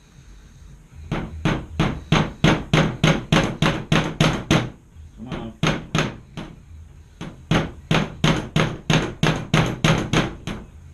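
Hammer blows driving nails at a sharp angle into the wood of an old dresser, about three strikes a second in three runs with short pauses, some thirty strikes in all.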